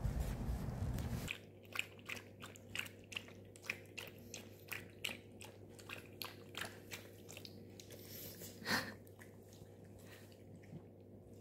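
A low rumble that cuts off about a second in. Then a quiet room with a run of small irregular clicks and crunches, two or three a second, and one louder crunch near the end, over a faint steady hum.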